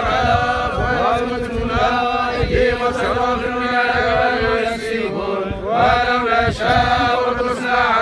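A crowd of mourners, men's voices, chanting together in unison: an Islamic funeral chant with long held notes.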